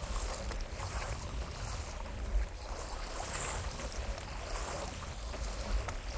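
Choppy water splashing and lapping around a kayak, with gusting wind rumbling on the microphone.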